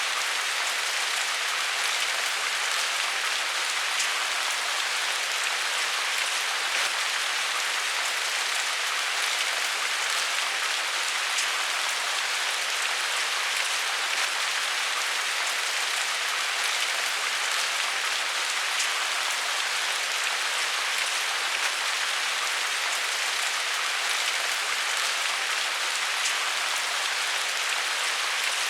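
Steady rain falling, a constant even hiss with fine drop patter and no let-up.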